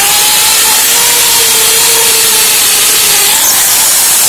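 Electric drill with a concrete bit boring a hole into a wall: a loud, steady grinding with the motor's whine running under it.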